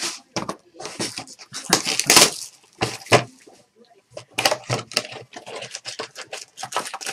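Hands handling a cardboard Bowman Sterling baseball card box, sliding it across the table and opening its lid: an irregular run of scrapes, taps and rustles.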